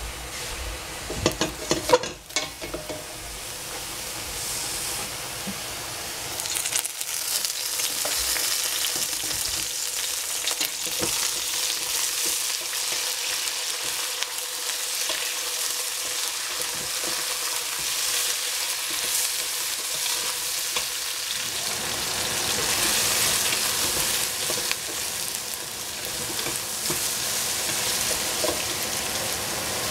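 Sliced eggplant and zucchini sizzling steadily in hot oil in a stainless steel pot, stirred with a wooden spatula that knocks and scrapes against the pot, with a few sharp knocks about two seconds in.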